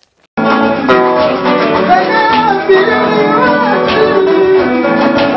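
Band music with guitar and a singing voice, starting abruptly about a third of a second in and carrying on loudly.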